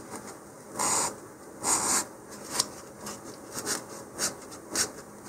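150-grit sandpaper rubbed lightly in short strokes over a model rocket's paper body tube, roughening the fin areas so the glue holds better. About six strokes, the two longest about a second apart near the start, the rest shorter and sharper.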